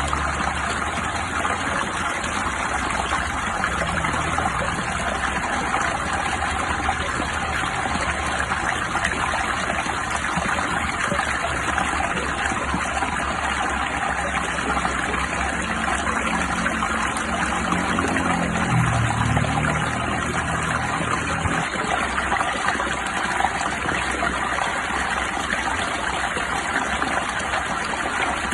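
Steady, even rush of water, rain or flowing stream, with a low droning hum that swells and shifts in pitch around the middle.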